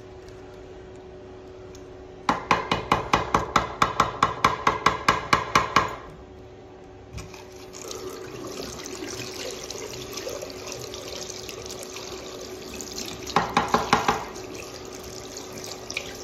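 A plastic toilet fill valve being knocked rapidly against a ceramic washbasin, about four or five sharp knocks a second for nearly four seconds, to shake debris out of its clogged filter. Then the basin tap runs steadily, splashing water over the valve as it is rinsed, with another short burst of knocks near the end.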